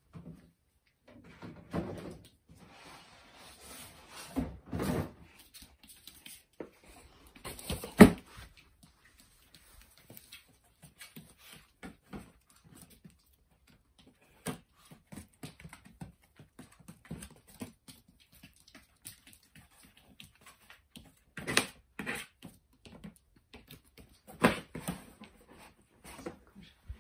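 Cardboard knocking and scraping as a Pomeranian paws and noses at a flat cardboard box and the cardboard mat under it, in irregular bumps with a sharp thud about eight seconds in.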